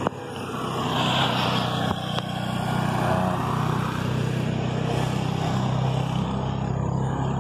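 Road traffic noise: a motor engine humming steadily under a continuous rush of wind and road noise, a little louder after about a second.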